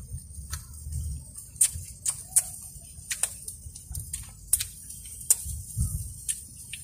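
Irregular sharp clicks and smacks, about two a second, from people eating grilled fish by hand, over a low steady rumble.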